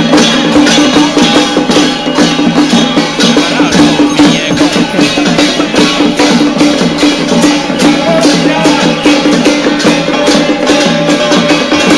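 Temple-procession percussion of drums and cymbals beating a fast, steady rhythm of about three or four strikes a second, over a steady held tone. It is loud and keeps going without a break.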